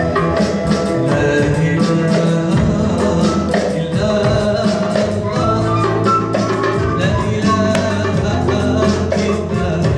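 Male singer singing an Arabic song live, accompanied by keyboard, end-blown flute and oud over a steady percussion beat.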